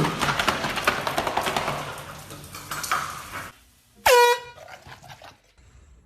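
Clattering, rattling noise for about three and a half seconds, then a single short horn-like honk about four seconds in.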